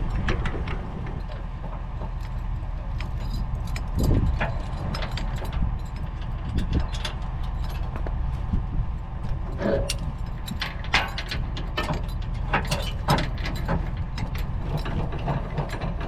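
Pickup truck engine idling steadily under scattered sharp metallic clanks and rattles from the trailer hitch and safety chains being handled while trailers are swapped.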